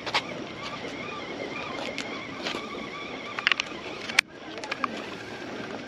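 Several sharp clicks and taps from a small plastic battery case being handled close to the microphone, the loudest just after four seconds, over a steady background hiss.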